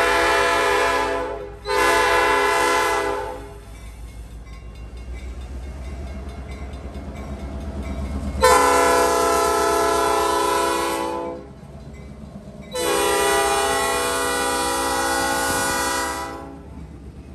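Norfolk Southern GP38-3 diesel locomotive's air horn sounding for a grade crossing. The tail of one blast is followed by a short blast, then the locomotive's rumble rises as it draws close, then come two longer blasts of about three seconds each.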